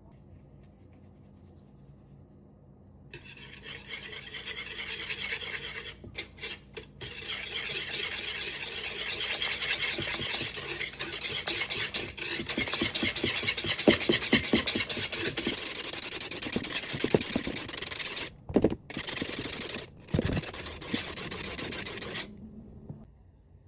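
Rapid stirring in a mixing bowl: a steady scratchy rasp made of fast strokes, starting a few seconds in, pausing briefly a few times and stopping near the end.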